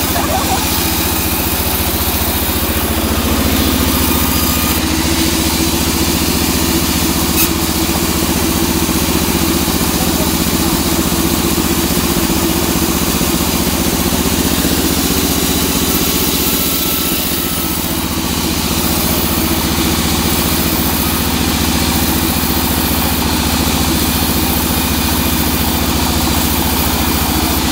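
Sawmill band saw running steadily while it cuts through a teak log: a continuous machine drone with a hiss from the blade in the wood.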